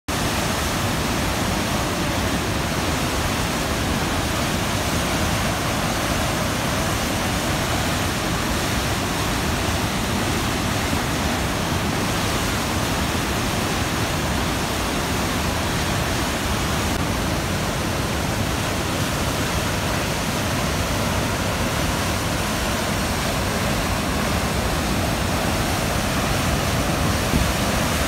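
Water rushing down a steep concrete chute in heavy white-water flow: a loud, steady roar of falling and churning water that does not change.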